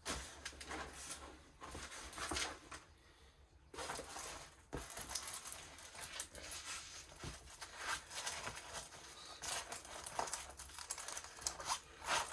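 Crinkling and rustling of a diamond painting kit being handled: the rolled canvas and its plastic packaging crackle in irregular bursts, with a quieter pause about three seconds in.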